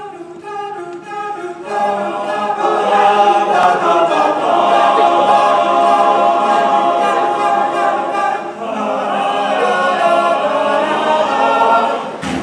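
An a cappella vocal group singing held close-harmony chords with no instruments. A few voices open softly, the full group swells in about two seconds in, and the singing cuts off sharply just before the end.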